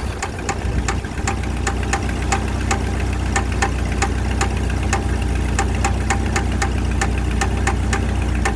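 1995 Jeep Wrangler YJ engine running at idle with a sharp, regular tick, about three a second. The owner suspects an exhaust leak; she first took it for a rod knock, but oil pressure is fine.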